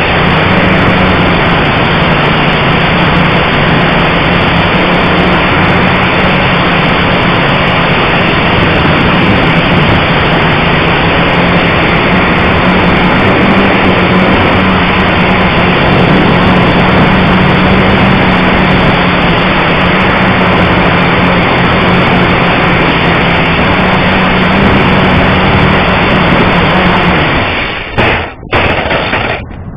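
Blade 180 QX quadcopter's motors and propellers buzzing loud and steady with a low hum, heard on its own onboard camera. Near the end the buzz cuts off as the power is cut, followed by a few sharp knocks as the drone falls onto the asphalt.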